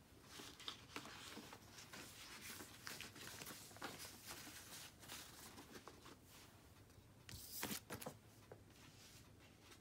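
Faint rustling and small clicks of a sheet of paper being handled on a wooden table, with a louder brush of paper about three-quarters of the way through as the page is lifted away.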